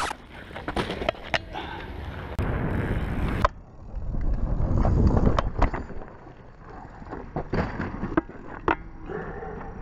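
Mountain bike rolling over rough dirt and gravel: tyre rumble with repeated sharp knocks and rattles from the bike, heard through a handlebar-mounted camera.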